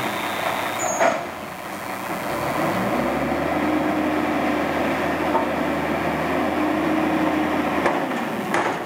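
Front-loader garbage truck lifting a dumpster over its cab with its hydraulic forks. A clank about a second in, then the engine revs up with a rising whine that holds steady while the arms raise the container, and another clank near the end.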